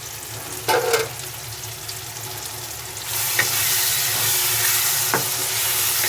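Onion-tomato masala sizzling in hot oil in a pan while it is stirred. There is a short metal clank about a second in, and the sizzling gets louder about three seconds in.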